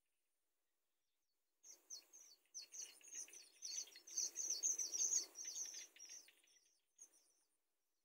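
Downy cinnamon bittern chicks in the nest giving a fast run of short, high chirps, about four a second, typical of chicks begging from an adult at the nest. The chirping starts about a second and a half in, is loudest midway and fades out near the end.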